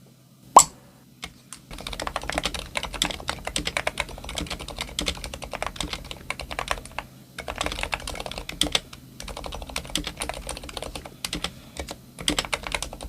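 Hot-swappable mechanical keyboard being typed on fast, a dense clatter of key presses in several runs with short pauses between them. It opens with a single sharp pop.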